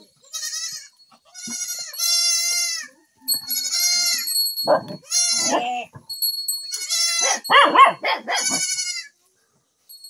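Goat kids bleating over and over in high-pitched calls, about one a second, with lower, louder calls about halfway through and again near the end.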